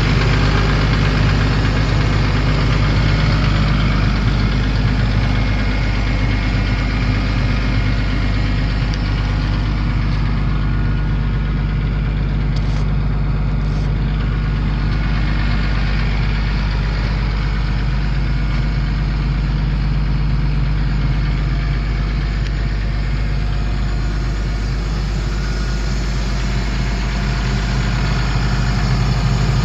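Diesel engine of a 2006 Doosan DX300LC tracked hydraulic excavator running steadily.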